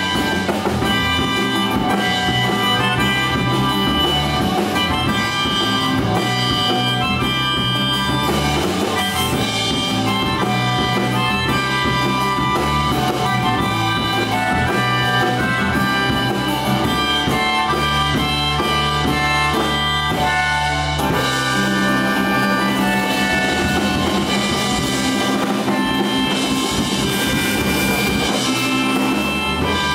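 Live band playing an instrumental passage: bass guitar, guitar and keyboard under a held lead melody line, with the bass line shifting about two-thirds of the way through.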